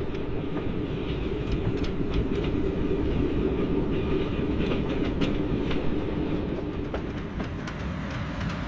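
Train running along the rails: a steady rumble with scattered clicks from the wheels over the track, easing off slightly near the end.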